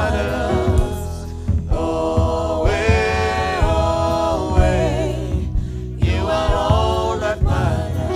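Gospel choir singing in harmony in sustained phrases, over a low bass line and a steady beat.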